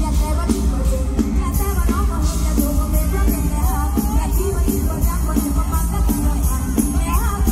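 Mor lam band playing live through a PA in lam sing style, with a heavy bass and a steady beat, and a woman singing a bending, ornamented melody into a microphone.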